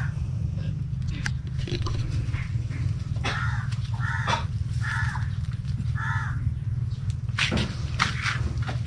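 A bird calling four times in a row, short harsh calls about a second apart, over a steady low hum.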